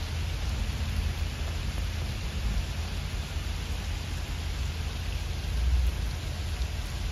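Steady rain falling, with a low rumble underneath that swells briefly near the end.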